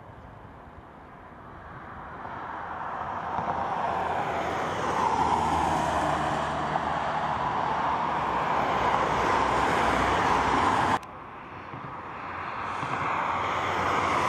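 Embraer E190 jet airliner's two GE CF34-10E turbofans at takeoff power, the engine noise swelling over the first few seconds and then holding steady. It drops abruptly about eleven seconds in and builds again.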